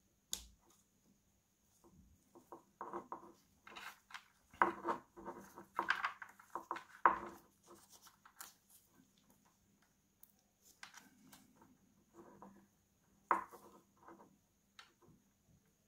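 Gloved hands working the wiring and plastic cable connectors of an electric scooter's controller: irregular rustling, rubbing and small clicks as plugs are pushed into their sockets, busiest in the middle, over a faint steady high tone.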